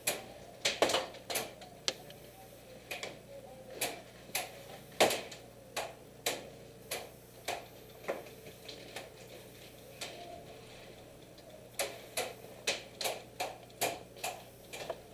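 A string of sharp clicks and snaps, scattered through the first half, then a fairly even run of about two a second from about twelve seconds in.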